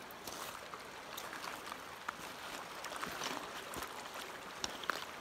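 Shallow river water running over gravel: a steady, even rush, with a few faint splashes near the end.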